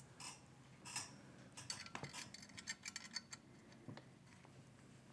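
Faint, scattered small metallic clicks and ticks, thickest in the middle, from handguard fasteners and a small tool as the screws are lightly tightened by hand.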